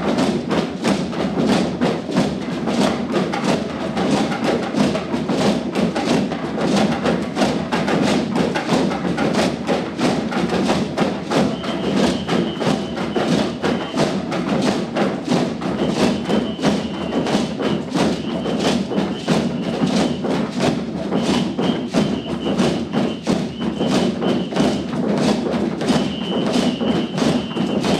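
A large ensemble of hand drums, mostly djembes, played together in a steady fast beat. A high held tone comes in several times over the drumming in the second half.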